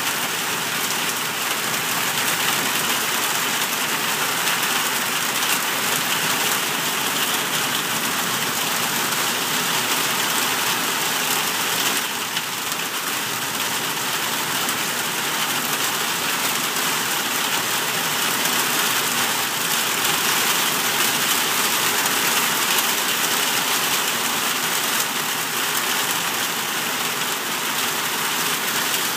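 Heavy rain pouring down steadily onto a paved driveway and trees, an even hiss throughout.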